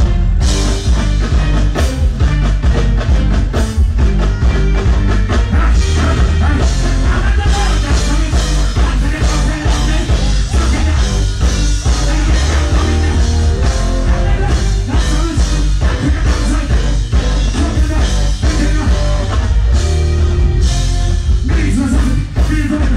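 Live reggae band playing loudly, with heavy bass and drums under a male singer on microphone.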